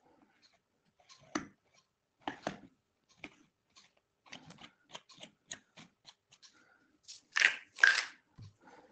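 A person chewing and crunching small hard Ayurvedic digestive tablets, with a scatter of short crunches and clicks. Two louder rushing noises come about seven and eight seconds in.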